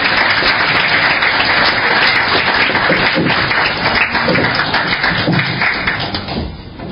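Audience applauding in a hall, dense and steady, then dying away near the end.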